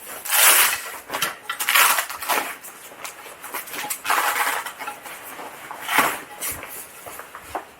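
Rustling and light metallic clatter as an aluminium hydrofoil mast is handled and drawn out of its padded bag, in several separate bursts of a second or less.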